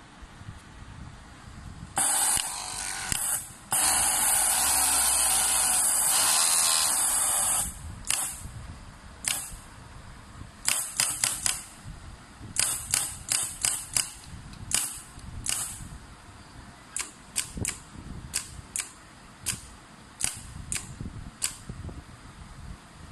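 Compressed air hissing from a pneumatic overlock sewing machine, first in two long blasts of about one and a half and four seconds, then in a string of short sharp puffs and clicks from its air cylinders, coming irregularly one or two a second.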